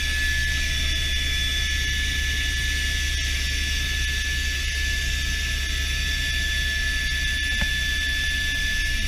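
Helicopter in flight heard from inside the cabin: a steady high-pitched engine whine over a low rotor drone and a constant rushing hiss.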